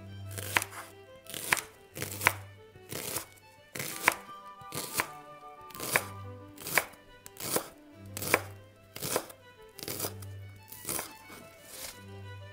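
Chef's knife chopping a shallot, each cut ending in a knock of the blade on a wooden cutting board, about one cut a second at a steady pace. Soft background music plays underneath.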